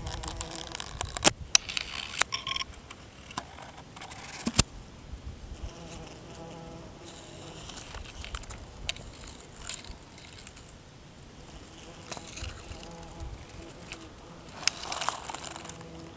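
A flying insect buzzing close by, fading in and out several times. A few sharp clicks and rustles come in the first five seconds.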